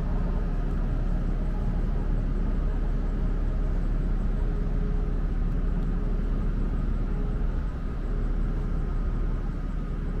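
Steady low drone of a berthed car ferry's machinery, with a faint steady hum over it.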